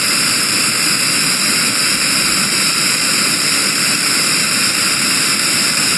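Steady, loud electronic noise drone from a synthesizer, a hissing rush like a jet engine with no beat or melody.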